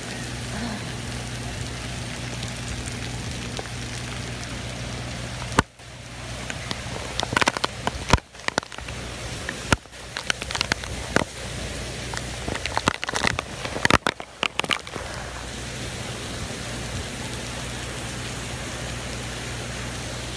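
Torrential rain and wind of a hurricane's front eyewall: a steady, even rush, with a stretch of sharp crackles and clicks through the middle.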